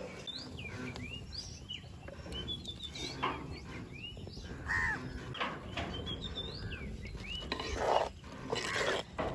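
Birds chirping and calling around an outdoor wood-fire hearth, many short high chirps with a louder falling call about halfway through. Near the end, a wooden spoon stirs squid curry in a clay pot.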